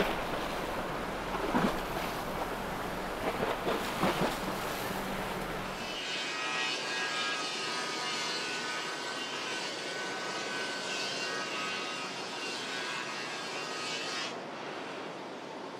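Wind and water noise with a low engine hum and a few sharp splashes. About six seconds in this gives way to a steady whine of small propellers, several high tones held level for about eight seconds, which cuts off abruptly.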